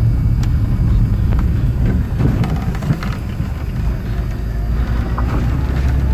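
Vehicle driving along a road, heard from inside: a steady low engine and road rumble with a few light knocks.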